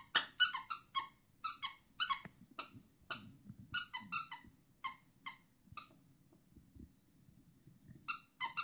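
Dog chewing a plush squeaky toy, setting off a rapid run of short, high-pitched squeaks. The squeaking stops for about two seconds, then starts again near the end.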